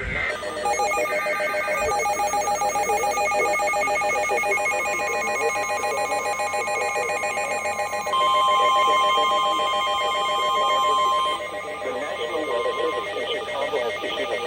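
Emergency alert attention signal for a tornado warning: a loud electronic alarm of several tones pulsing rapidly. About eight seconds in, a steady single tone joins it for roughly three seconds.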